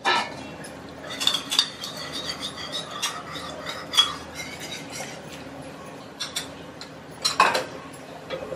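Metal spoon scraping and clinking against a small ceramic bowl as sauce is scraped out into the curry, then a steel ladle stirring and knocking against the wok. The clinks come in a quick run during the first few seconds, with a few more knocks near the end.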